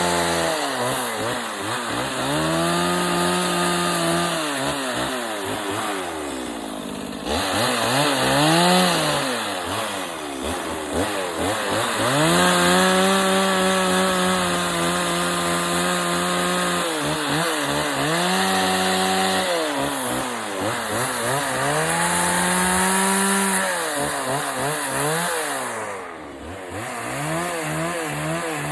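Small Stihl 020 chainsaw with a thin dime-tip carving bar, revved up and held at high speed in repeated cuts into wood, dropping back toward idle between them and falling off almost completely twice, about seven seconds in and near the end.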